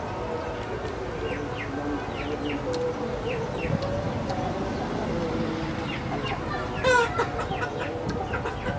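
Chickens clucking nearby, with many short high chirps throughout and one louder call about seven seconds in.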